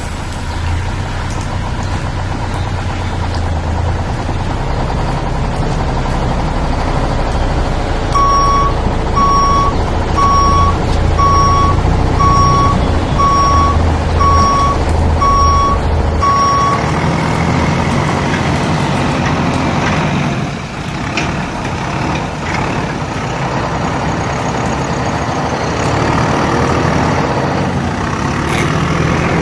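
Truck engine rumbling steadily while a reversing alarm beeps nine times, about a second apart, starting about eight seconds in. After the beeps stop, the engine sound shifts to a different, lower rumble, over a constant hiss.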